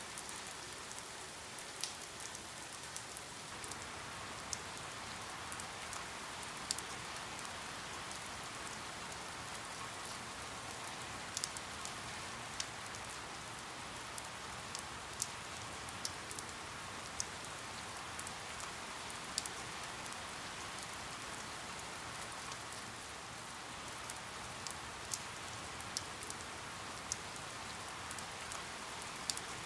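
Steady rain falling, an even hiss with scattered sharper drips ticking close by, some louder than the rest.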